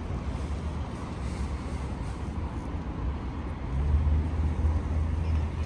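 Motor vehicle engine running close by: a steady low rumble that swells into a louder low hum a little past halfway through.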